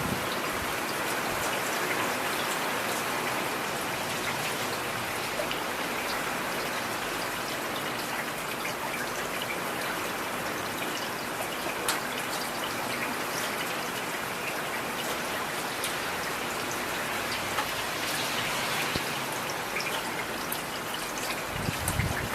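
Heavy rain falling steadily, with many scattered sharp drop taps through the even hiss, and a brief low swell near the end.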